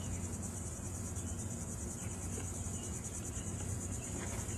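Steady, high-pitched insect chirring with a fast pulse, over a low hum.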